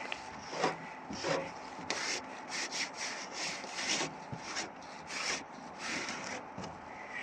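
Footsteps crunching and creaking in fresh snow, about two steps a second, each a short dry crunch.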